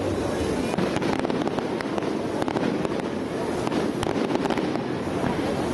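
Aerial fireworks bursting in quick succession: a steady run of sharp cracks and pops over a dense, continuous noise of the display.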